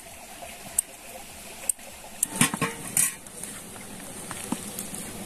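Scattered light clinks and knocks of a knife and food against metal bowls as food is handled, a small cluster of them about halfway through.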